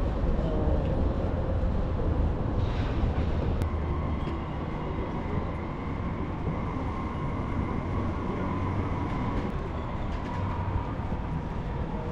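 Steady rumble and running noise of a moving vehicle, with a faint steady whine that comes in a few seconds in.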